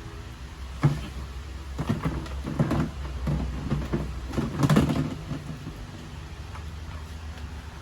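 Irregular knocks and clatter of handling hard parts during unboxing and assembly: one sharp knock about a second in, then a cluster of clattering knocks that dies away after about five seconds.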